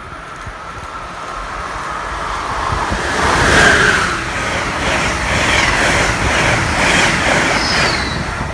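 Amtrak passenger train of Amfleet coaches passing close by. It builds to its loudest a few seconds in as the cars sweep past with a rhythmic clatter of wheels, then fades near the end.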